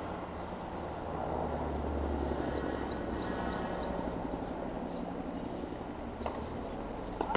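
Steady rumble of city traffic that swells for a few seconds as a vehicle passes, with a bird chirping a quick run of high notes in the middle. A faint knock about six seconds in and a sharper one just before the end.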